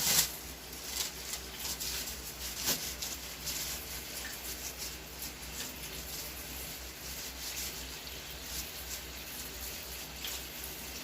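Paper tissues being pulled out and handled, with short crinkling rustles over a steady hiss.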